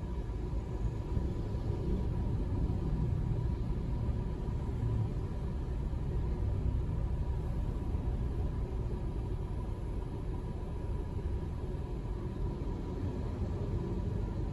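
Low steady rumble heard inside the cabin of a car idling at a standstill, with a faint steady tone over it.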